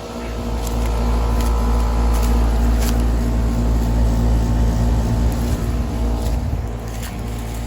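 Outdoor heat pump units running: a steady compressor and fan hum over a low rumble that swells early on and eases off near the end, with a few faint ticks.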